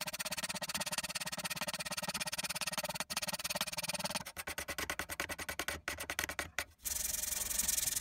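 Abrasive sanding pad scrubbed hard over a turned wooden table leg, stripping the old finish down to bare wood. It makes a fast rhythmic rasping, breaks into separate uneven strokes about halfway, then turns into a steady hiss near the end.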